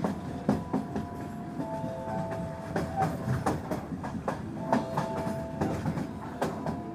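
Electric commuter train running on its rails, with a low rumble and irregular clacks of the wheels over rail joints.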